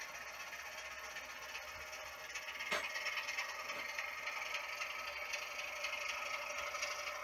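OO gauge model diesel locomotive's DCC sound decoder playing a diesel engine sound through its small speaker, thin with almost no bass, over a light rattle of wheels on the track. A single click about two and a half seconds in, and the sound grows slightly louder after it.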